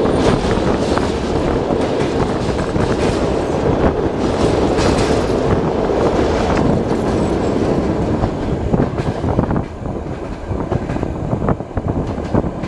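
Train running on rails, its wheels clattering over the rail joints, a little quieter in the last few seconds.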